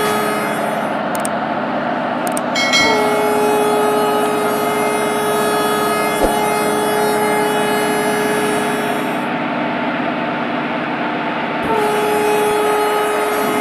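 Train horn sounding in long, steady blasts over the running noise of a train. One blast starts about three seconds in and holds for some six seconds, and another starts near the end.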